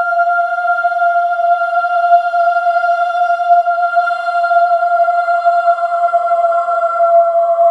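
Creepy, ominous ambience: one sustained eerie tone with a wavering, theremin-like quality, held steady and sinking slightly in pitch.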